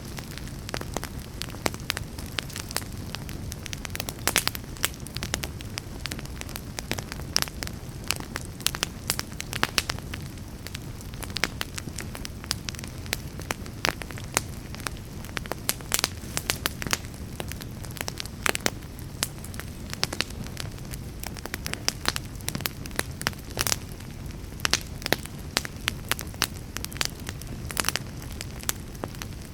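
Fire crackling in a fireplace: frequent, irregular sharp pops and snaps over a steady low rumble of the flames.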